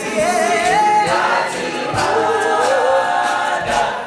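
Male a cappella group singing: a lead voice slides through a wavering run on top while the other voices hold close harmony beneath, with no instruments.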